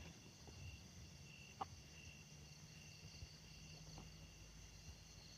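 Near silence with faint crickets chirping steadily, and a small click about a second and a half in.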